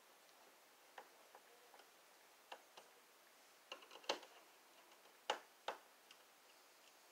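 Scattered small metallic clicks and ticks of a screwdriver working the screw terminals of a three-prong outlet receptacle while a ground wire is fastened to it. The loudest clicks come a little after four seconds and twice around five to six seconds in.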